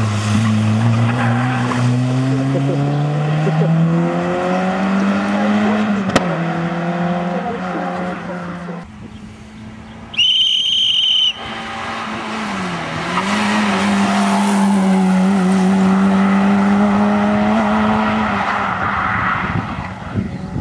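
Fiat Cinquecento rally car engine pulling hard at high revs on a stage, its pitch rising steadily as it accelerates. The engine note dips briefly once and then holds high. About halfway through, a shrill steady whistle sounds for about a second.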